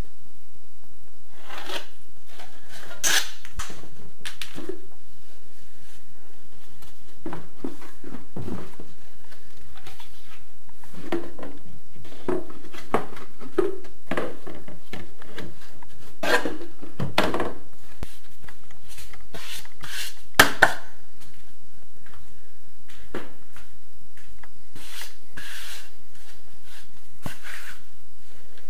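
Scattered knocks, clicks and scrapes of handling work: a wall panel, a ruler and tools being moved, laid down and picked up, with two sharp clicks close together about twenty seconds in.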